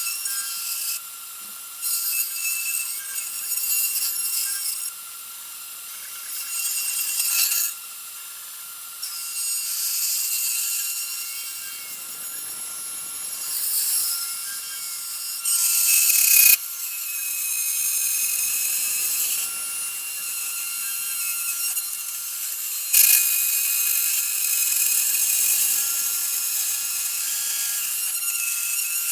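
Home-built CNC router milling a test part: the spindle runs with a steady high whine while the cutter chews through the material, the cutting noise growing and fading in passes of a few seconds, with sharper, louder cuts starting about halfway and again near three-quarters through.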